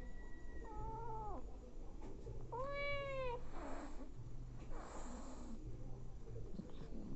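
Cats meowing while a mother cat nurses her kittens: a short meow about a second in and a longer, louder one around three seconds, then two short breathy noises, over a low purr that comes and goes with each breath.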